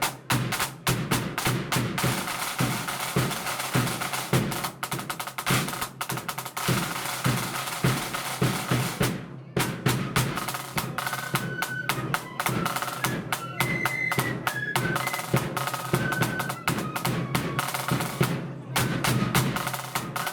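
Marching flute band playing: snare drums rattle out rolls over a bass drum beat, with two brief full stops in the drumming, and about halfway through the flutes come in with a melody over the drums.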